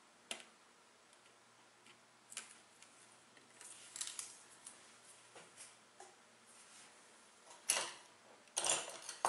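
Small clicks, scratches and rustles of hand work on a plastic model flight deck on a cutting mat: a toothpick picking at the edge of masking tape and a hand moving over the mat. There is a sharper scrape about three-quarters of the way through and a louder cluster of rustling near the end.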